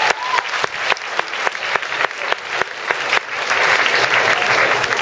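A large audience applauding in a hall: many hands clapping, growing louder and denser about three seconds in.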